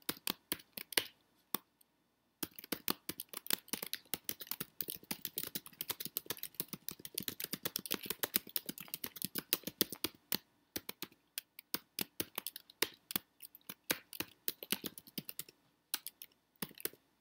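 Typing on a computer keyboard: a fast, irregular run of key clicks that starts after a short pause about two seconds in and thins out near the end.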